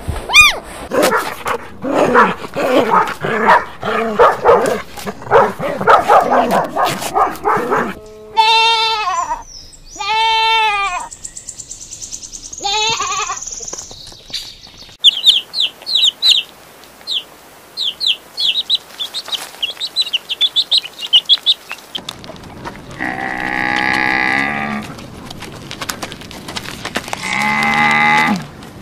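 A run of animal calls one after another: many short calls at first, then three or four goat bleats, then rapid high chirps for several seconds, and near the end two long, low drawn-out calls.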